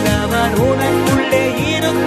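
Tamil Christian worship song: a man singing over a Yamaha electronic keyboard accompaniment with a steady beat, with vibrato on a held note in the second half.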